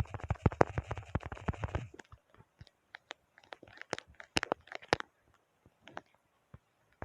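Keyboard keys clicking in a fast, dense run for about two seconds, then a scattering of single key clicks that thin out and nearly stop about six seconds in.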